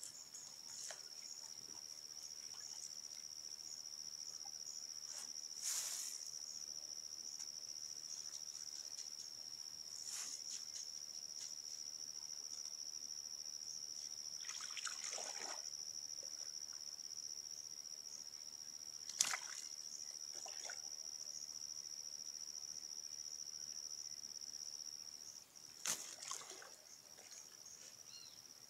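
Steady high trill of crickets, breaking off near the end, with a few short splashes and sloshes of water as a cast net is hauled in by hand; the sharpest splashes come about 19 and 26 seconds in.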